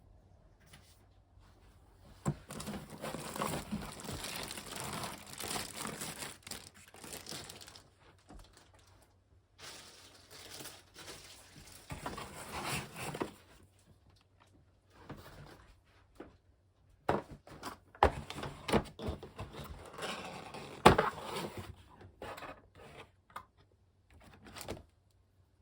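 Packaging handled during unboxing: plastic wrap and cardboard crinkling and rustling in several spells, with quiet gaps between them. Short knocks and clicks come in between, the loudest a sharp knock near the end.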